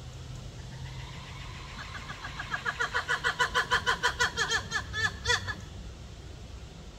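Black-and-white ruffed lemur calling: a run of rapid, pitched, barking calls at about five a second, building from faint to loud over the first seconds and stopping abruptly a little after halfway.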